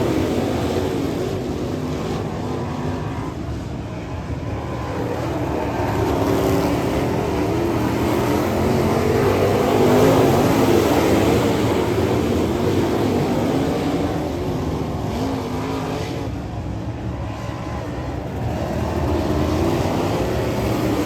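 Dirt late model race car V8 engines running at speed on a dirt oval, their pitch rising and falling as the cars go through the turns and down the straights.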